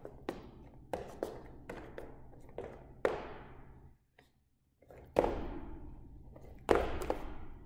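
Fencing footwork in sneakers on a hard gym floor: quick, irregular taps of steps and heavier thuds of jump landings, each with a short echo. There is a brief gap near the middle, and the loudest landings come in the second half.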